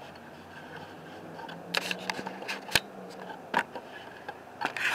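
Handheld camera being handled: irregular clicks, knocks and rubbing from the body and controls, the sharpest knock a little under three seconds in and a flurry of clicks at the very end.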